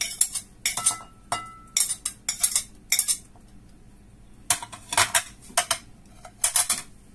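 A metal knife scraping and tapping against a ceramic plate while pushing pomegranate seeds off it, heard as quick clusters of clinks. The clinks come in two bunches, one in the first three seconds and another from about four and a half to seven seconds, with a short ringing note from the plate just after a second in.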